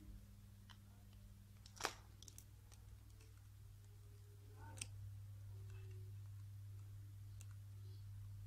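Near silence over a steady low hum, with a few faint clicks and rustles of hands working embroidery thread through a crocheted doll's head. The sharpest click comes about two seconds in and another near five seconds.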